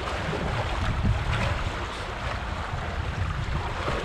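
Wind buffeting the microphone, with water rushing and splashing along the hulls of a small Hobie catamaran under sail.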